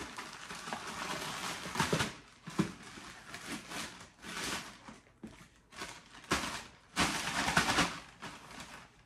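Plastic poly mailer bag crinkling and rustling in bursts as it is pulled open and handled, loudest in a few sharp crackles about two, four and seven seconds in.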